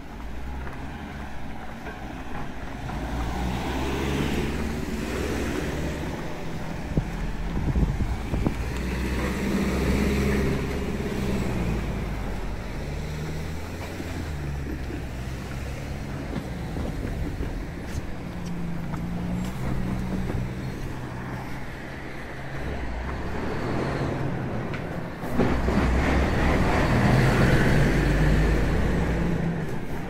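Road traffic: cars passing close by on a street, with a louder vehicle going past about 25 seconds in.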